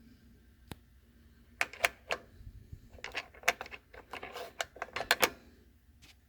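Small metal pressure-gauge fittings clicking and clattering as they are handled and set against one another: a single click, then a quick irregular run of sharp metallic clinks over about four seconds.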